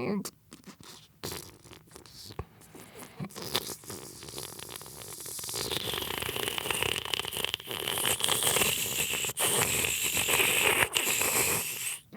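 A dense scratchy, crackling noise full of many small clicks, building louder over several seconds.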